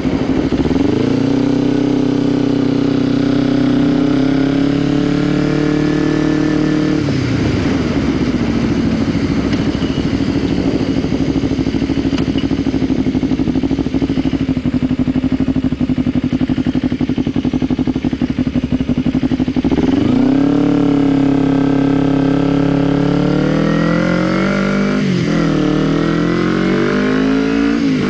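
Kawasaki Ninja 250R's parallel-twin engine under way: it revs up and holds, drops back to low revs around seven seconds in and runs there for a long stretch, then revs up again about twenty seconds in, with a short dip and pick-up near the end.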